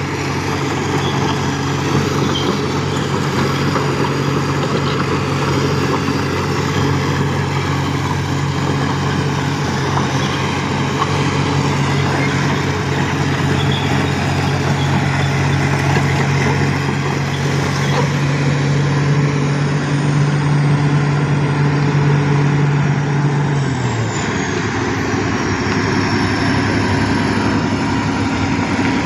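Heavy diesel engine running steadily, dropping to a slightly lower pitch about 24 seconds in.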